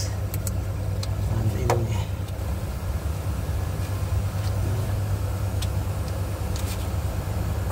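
Engine idling steadily with a low drone, under a few light clicks of side-cutting pliers at a wiring harness clip.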